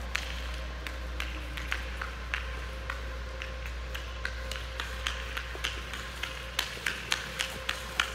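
A run of light taps and clicks on rink ice from a Labrador's booted paws and the hockey stick it carries as it trots, about two a second at first, then louder and quicker near the end. A steady hum runs underneath.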